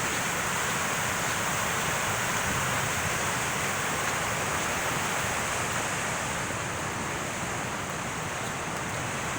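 Floodwater rushing steadily through a swollen small stream, which is normally only a trickle.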